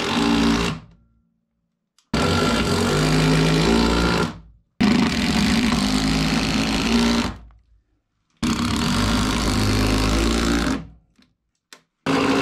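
Impact driver driving TimberLOK structural screws into a floor joist, in repeated runs of about two to three seconds with short pauses between screws.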